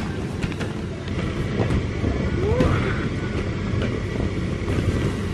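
Steady low rumble of a jumping castle's electric air blower running, with a brief child's voice about halfway through.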